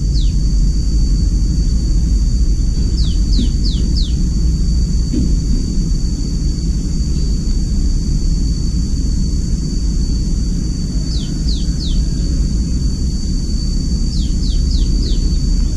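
Steady low rumble, with short high falling chirps in runs of three or four that come back every few seconds.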